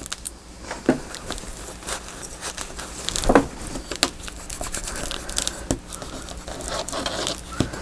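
Paper and card being handled while gluing: rustling and crinkling with irregular light taps and clicks, a firmer knock about three seconds in.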